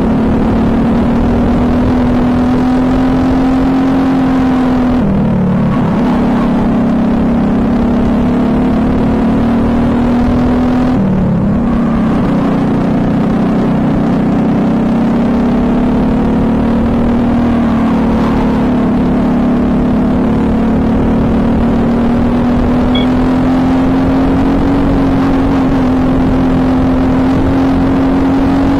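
Briggs & Stratton LO206 single-cylinder four-stroke kart engine running at racing speed, heard on board. Its pitch drops briefly twice, about five and eleven seconds in, then picks back up and climbs slowly through the last ten seconds.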